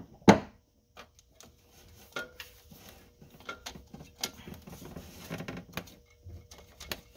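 Steel clutch pressure plate being worked off the flywheel's dowel pins by hand: a loud metal knock just after the start, then scattered light clanks and rattles of metal on metal.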